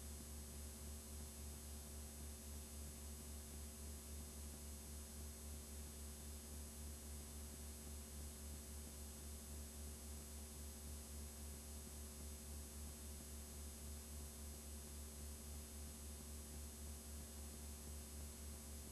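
Steady low electrical hum, with a few fainter steady tones above it, under a constant hiss: the sound of a blank stretch of videotape playing back.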